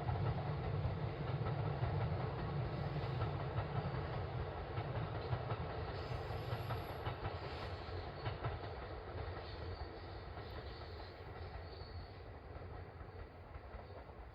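Kintetsu electric train running and receding, a heavy low rumble that fades away steadily, with a few wheel clicks over the rail joints about halfway through.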